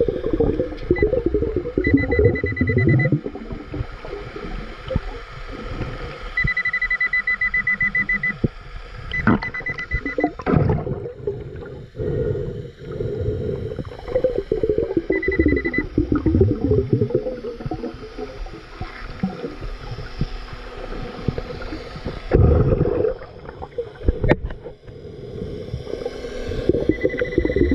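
Nokta Makro Pulse Dive underwater metal detector beeping: a high tone pulsing rapidly in five bursts, the longest about two seconds, signalling metal under the coil. Beneath it, underwater bubbling and gurgling.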